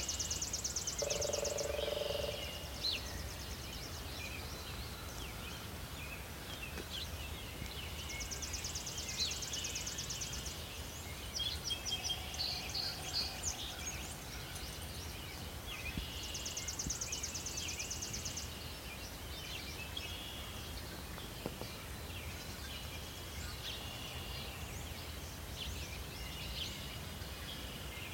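Morning bird chorus: assorted birds chirping, with a high, buzzy trill repeating about every eight to nine seconds. A brief lower animal call sounds about a second in, over a faint low rumble.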